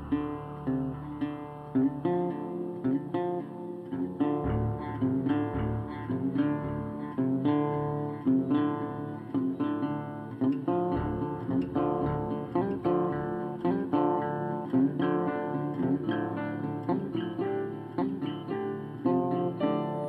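Instrumental background music: an acoustic guitar picking a steady run of notes.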